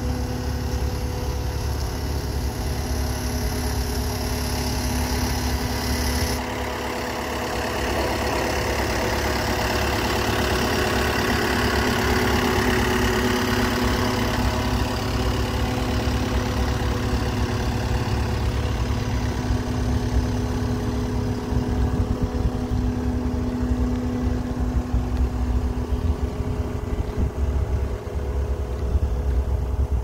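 Cat 272D2 skid steer's diesel engine idling steadily, a little louder for a few seconds about a third of the way through.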